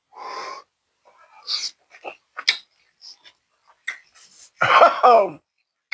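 Close-up eating sounds from a hot mouthful of green beans: a short breathy blow at the start, then scattered wet lip smacks and mouth clicks of chewing, and near the end a loud, pitched voiced sound, a wordless murmur of enjoyment.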